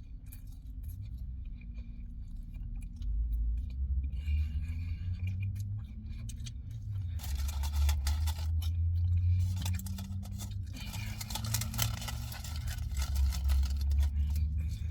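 Paper food wrapper rustling and crinkling as it is handled, getting louder about halfway through, over a steady low rumble.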